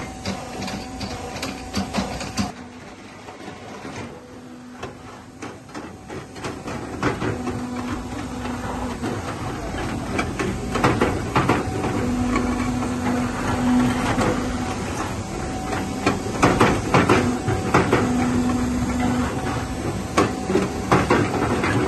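Tile-making machinery clattering, with many sharp knocks and clicks and a low hum that comes and goes every few seconds.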